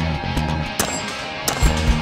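Background music with guitar and two sharp cracks cutting through it, about three-quarters of a second and a second and a half in.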